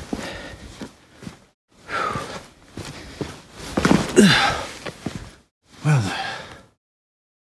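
A man breathing out heavily in three sighing exhales, each a noisy breath with a voiced tone that falls in pitch.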